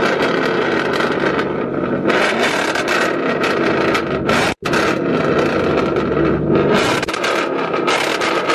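Car engines revving hard at high rpm, heard close up at the exhaust tips, loud and continuous. The sound cuts out for an instant about halfway through, then picks up again.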